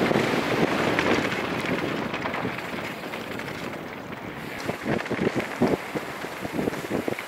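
Wind buffeting the microphone and tyres rumbling on a dirt trail as a YT Industries Tues downhill mountain bike descends at speed. About halfway through come quick rattling knocks from the bike over rough ground.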